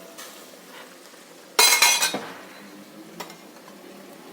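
A pot lid clatters against the rim in a brief run of metallic knocks about a second and a half in, as it is lifted off the cooking chicken, with a single light clink near three seconds. Under it the chicken simmers faintly in the water it has released.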